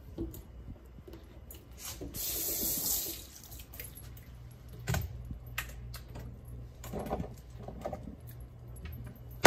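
Seasoning shaken from a spice container over a bowl of raw meat and seafood: a hissing sprinkle about two seconds in, then several light clicks and taps as the containers are handled, over a steady low hum.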